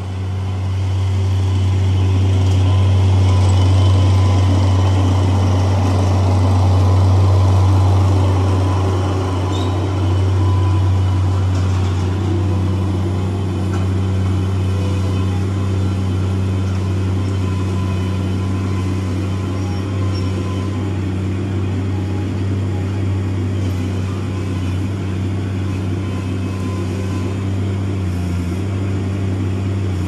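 Dingo compact utility loader's engine running steadily, a loud low drone that swells and eases slightly as the machine works, with no sudden knocks.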